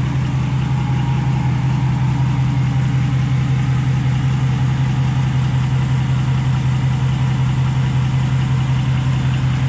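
Ram 1500's 5.7 Hemi V8 idling steadily through a Borla S-Type cat-back exhaust, heard from underneath the truck as a constant low hum.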